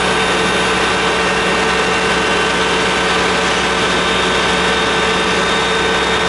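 Aerial ladder fire truck's diesel engine running steadily while driving the hydraulics that raise the ladder, with steady whining tones over the engine noise.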